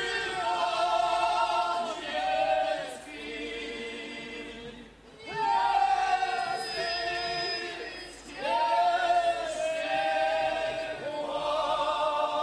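A male group of Górale highlanders singing a Podhale folk song together in harmony, without instruments. They sing in phrases with short breaks, several of which open with an upward slide into a held note.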